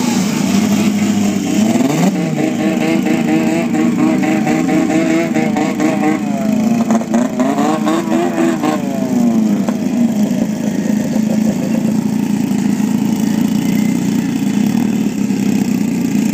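Snowmobile engines revving at the drag-race start line. The pitch rises and falls in repeated blips for roughly the first nine seconds, then settles into a steadier buzzing high idle.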